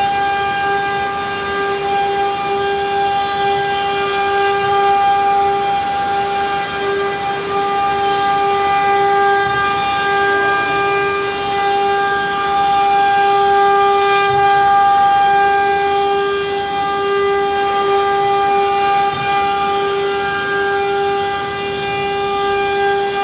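CNC router spindle running steadily while carving a wooden door panel: a constant high whine over the rasp of the cutter in the wood.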